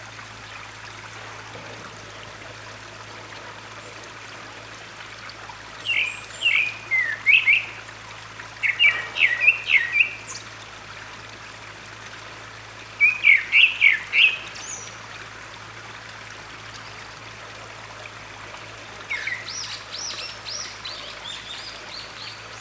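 Grey-backed thrush singing in short bursts of quick, rapid notes, with pauses of several seconds between phrases; the last phrase, near the end, is fainter. A steady rush of running stream water underlies it throughout.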